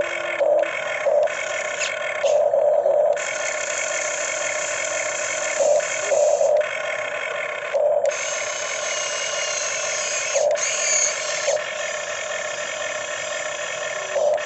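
Radio-controlled model excavator's motors whining steadily, with brief louder surges every second or few as the machine is worked.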